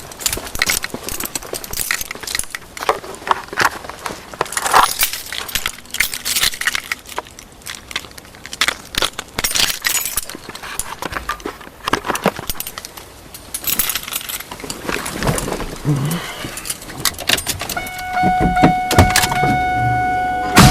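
A bunch of keys jangling and clinking as they are handled. A steady high tone comes in near the end.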